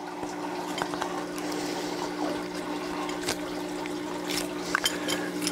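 Steady sound of running water with a low, even hum, and a few soft clicks as a vinyl hose is worked onto a small pump's outlet by hand.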